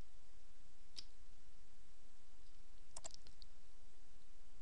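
Computer mouse clicking: one sharp click about a second in and a quick cluster of two or three clicks around three seconds, over a steady background hiss.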